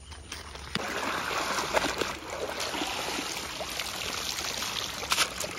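Water pouring and splashing off a wet fishing net as it is lifted out of shallow river water, starting about a second in and running steadily.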